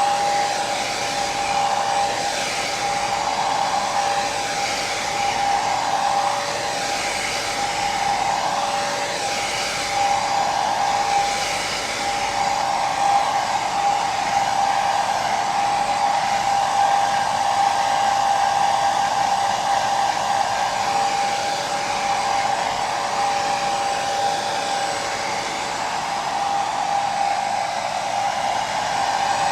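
Hair dryer running continuously: a steady rush of air with a constant motor whine.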